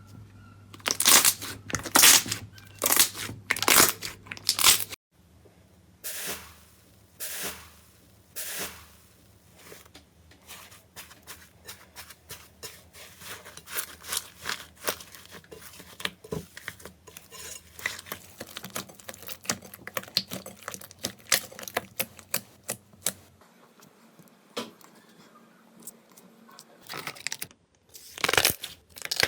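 Slime being squeezed and pulled apart close to the microphone: a few loud, wet tearing squishes, then a long run of fine crackling pops, and another loud squish near the end.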